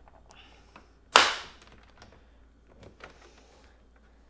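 A plastic clip on the Xbox One S's bottom case panel snapping loose under a pry tool with one loud, sharp crack about a second in, among fainter clicks and scrapes of the tool against the plastic.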